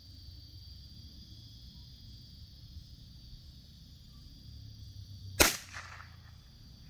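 A single .22LR rifle shot about five and a half seconds in, a sharp crack with a short trailing echo, over a steady high buzz of insects.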